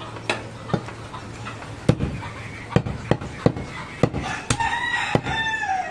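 Heavy curved butcher's cleaver chopping goat meat on a wooden log chopping block: about nine sharp chops at an uneven pace. Near the end a drawn-out call sounds over them and falls in pitch as it ends.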